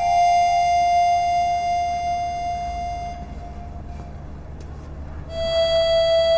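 Background music: a harmonica holding one long note that fades out about three seconds in, then a new, slightly lower held note comes in near the end.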